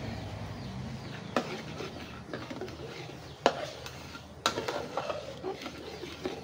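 Metal slotted spatula stirring and scraping a thick, bubbling sauce in a steel wok, with three sharp clinks of metal on metal spread through the middle and smaller scrapes between them.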